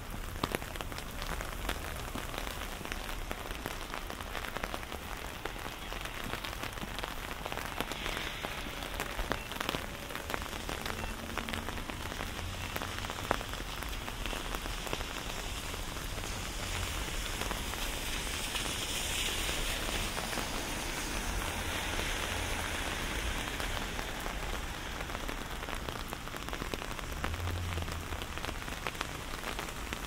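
Steady rain falling, a dense patter of drops over an even hiss. Partway through, a brighter hiss swells for several seconds and then fades.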